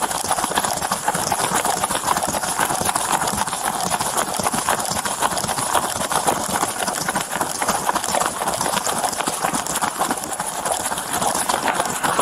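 Rapid, irregular footfalls with gear jostling and rubbing against a police body camera as the officer wearing it runs.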